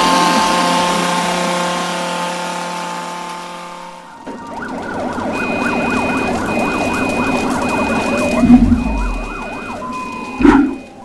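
A sustained music chord fades out over the first four seconds. Then city emergency sounds come in: several wavering sirens and a steady beeping alarm, with a heavy crash about four and a half seconds later and another near the end.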